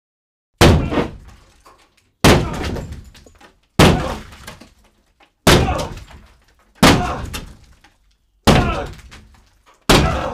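A wallpapered drywall wall being smashed open from behind: seven heavy blows about a second and a half apart. Each is a sudden crash of breaking board that trails off as debris falls.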